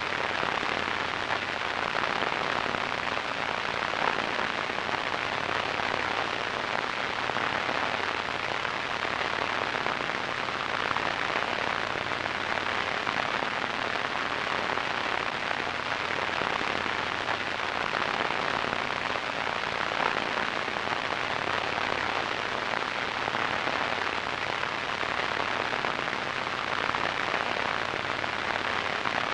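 Radio static: a steady, even hiss with a fine crackle that does not change.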